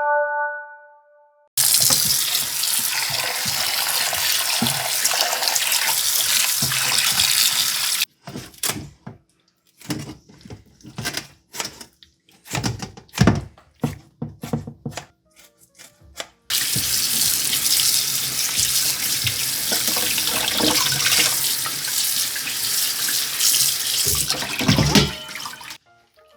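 Kitchen tap running hard into a sink. The flow stops for about eight seconds of irregular knocking and handling, then runs again.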